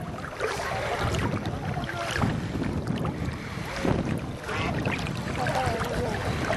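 Wind buffeting the microphone: a steady low rumble that swells and dips with the gusts.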